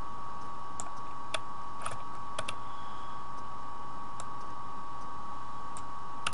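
Scattered computer mouse and keyboard clicks, about eight sharp clicks at uneven intervals, over a steady high-pitched tone.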